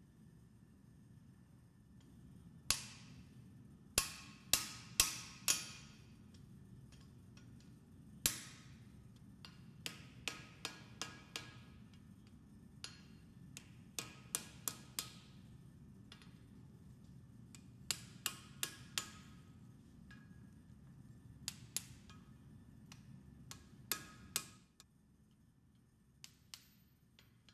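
Blacksmith's hammer striking steel on an anvil in short runs of blows, each ringing briefly: a few heavy strikes, then lighter, quicker taps. A steady low hum runs under the blows and cuts off near the end.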